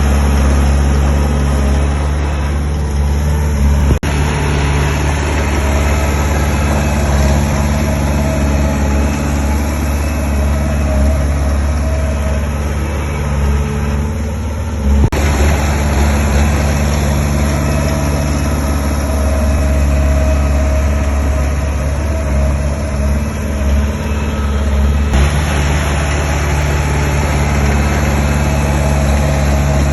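Diesel engine of heavy earthmoving machinery running steadily with a deep, loud drone, the sound shifting abruptly a few times.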